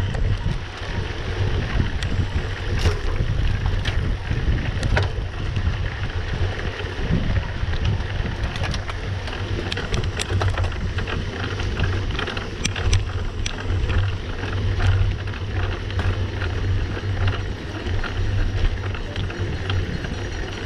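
Wind buffeting the microphone of a camera riding along on a mountain bike at speed on a dirt track, with steady tyre noise and many short clicks and rattles from the bike over the bumps.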